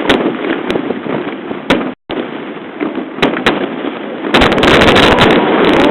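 Aerial fireworks bursting, with steady crackling and scattered sharp pops. About four seconds in comes a denser, louder spell of crackling.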